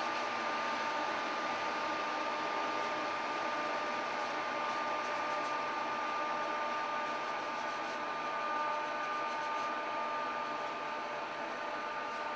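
A small electric motor running with a steady whir and a faint, high, steady whine.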